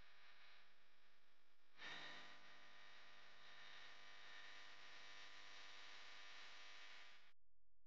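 Near silence: a faint steady hiss that cuts out completely for about half a second near the end.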